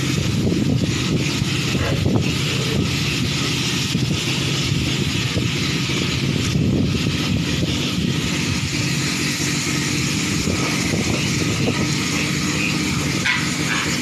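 Pressure washer running steadily, its motor and pump humming under the hiss of the high-pressure water jet striking concrete. Near the end, piglets squeal as the spray reaches them.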